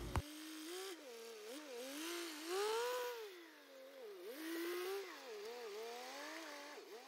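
Small vintage wheel loader's engine running, faint and thin, its pitch rising and falling repeatedly as it works the bucket.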